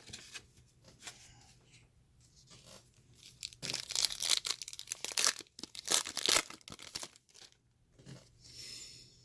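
A foil trading-card pack wrapper being torn open and crinkled. It is a run of loud ripping and crackling rustles in the middle, with softer handling rustles before and after.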